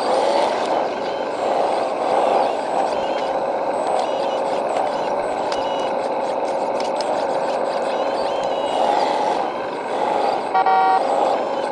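Hydraulic RC construction machine running: a steady, slightly wavering whine from its pump and motors as it works. A short pitched tone sounds near the end.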